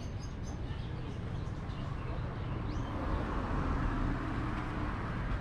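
Street traffic: steady road noise with a low rumble, swelling as a vehicle passes about halfway through.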